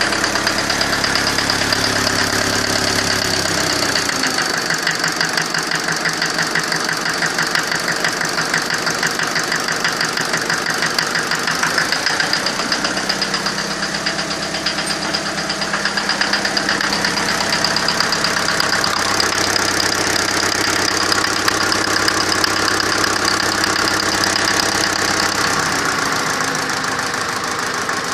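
Engine running rough with a fast, steady rhythmic knock. The engine's note drops about four seconds in, comes back up around thirteen seconds, and drops again near the end.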